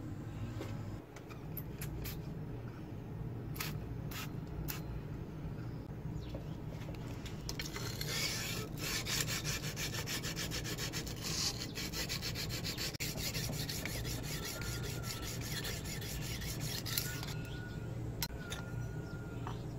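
Sandpaper rubbed quickly back and forth over the steel of an axe head made from a circular saw blade, in a fast even run of strokes from about eight seconds in to about seventeen seconds. A few light clicks come before it.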